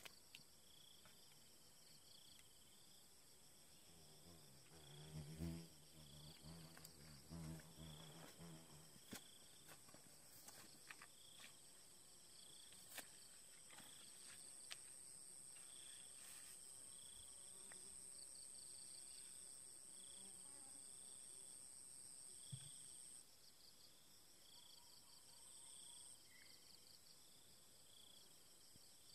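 Faint insects chirping: a steady high-pitched trill that stops about two thirds of the way through, over a short chirp repeating roughly once a second.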